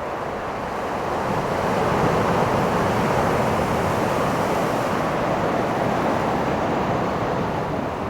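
Pacific surf breaking on the beach: the rush of a wave swells about a second in, holds through the middle and eases off near the end.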